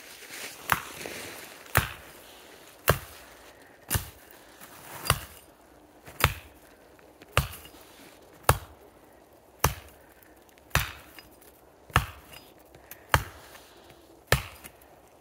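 An axe chopping into the trunk of a small spruce low at its base, in steady single blows about one a second, some thirteen strikes.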